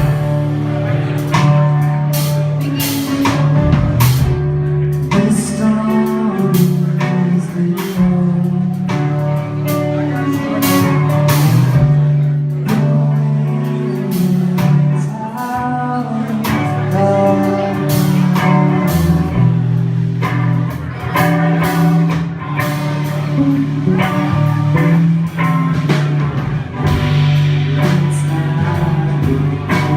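Live rock band playing: electric guitar, bass and drum kit with singing.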